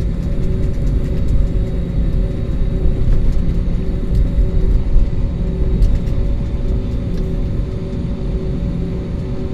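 Steady low engine rumble with a faint hum, unchanging in level.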